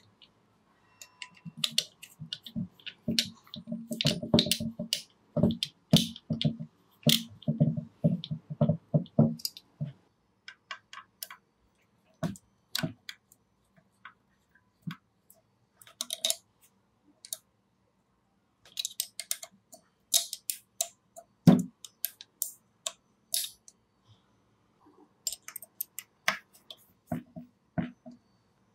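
Hand work on small metal tool parts at a bench: a rapid run of clicks and taps with duller knocks under them for about the first ten seconds, then scattered clicks and one louder knock a little past twenty seconds in.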